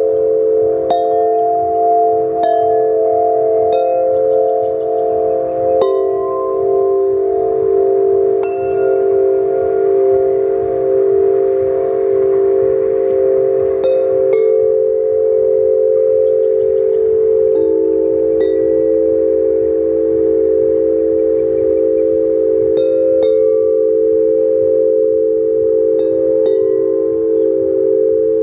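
Large handmade tubular bells ringing. They are struck at irregular moments every second or two, and each strike adds a short bright ping on top of several deep, overlapping tones that hold on and waver slowly.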